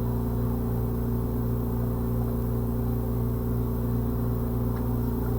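Steady low electrical hum made of several even tones, unchanging throughout.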